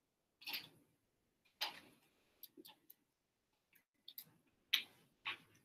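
Faint, scattered short taps and clicks, about eight to ten spread irregularly, from a dry-erase marker on a whiteboard and a person moving about at the board.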